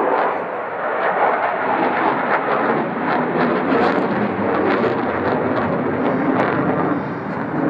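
Eurofighter Typhoon's twin EJ200 turbofan engines, a loud jet noise with a crackle running through it.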